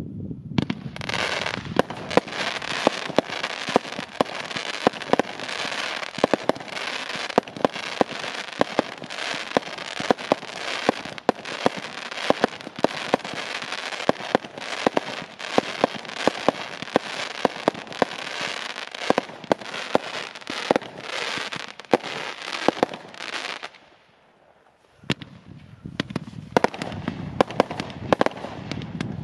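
WCKD Energyzer and Megatron consumer firework cakes firing together: a rapid, continuous stream of shot pops and crackling bursts. The firing stops about 24 seconds in, falls almost silent for about a second, then starts again.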